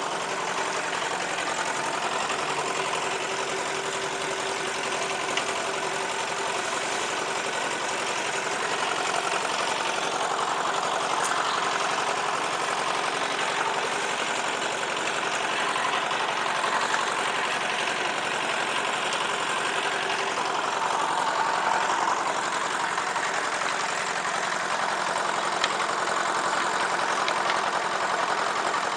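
Portable drum concrete mixer's small single-cylinder diesel engine running steadily.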